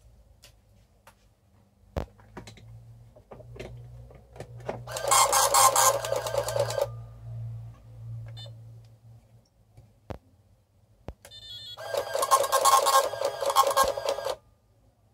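Small Citizen paper-roll printer hooked to a Fidelity Elegance Chess Challenger, rattling out lines of text in two bursts of about two seconds each, five seconds apart. The repaired printing circuit is working.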